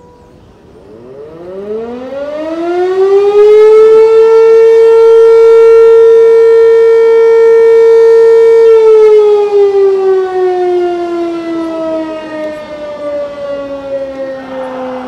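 A motor-driven siren winds up from about a second in, holds a steady, loud wail for several seconds, then winds slowly down.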